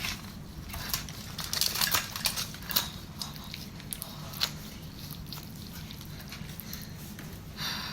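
Crackling and clicking of a baked whole chicken being cut and pulled apart, over a steady low hum, with a short rustle at the very end.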